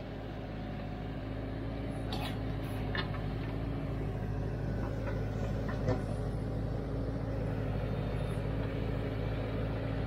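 Branson compact tractor's diesel engine running steadily while the backhoe digs, with a few faint knocks from the bucket working the dirt.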